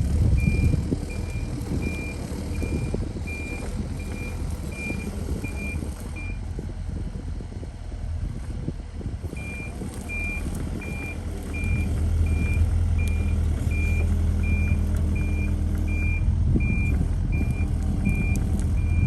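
Mini excavator's diesel engine running under a steady low hum, its travel alarm beeping about one and a half times a second. The beeping pauses for a few seconds mid-way, and the engine grows louder about twelve seconds in.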